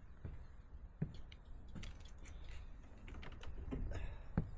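Irregular light clicks and knocks from a person shifting about and sitting down on a sailboat's deck, with a sharper knock about a second in and another near the end, over a low rumble.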